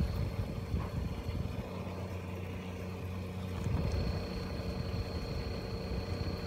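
Small restroom exhaust fans with blades about 10 cm across, running with a steady low hum. A thin high whine comes in about four seconds in.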